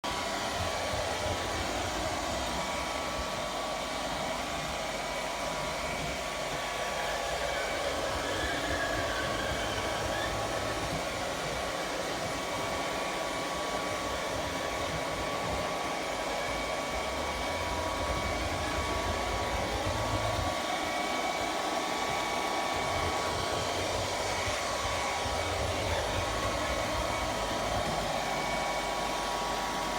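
ILIFE V3s Pro robot vacuum running, a steady whir with a thin whine on top and a low rumble that comes and goes. This is the noise its owner presents as a sound problem with the machine.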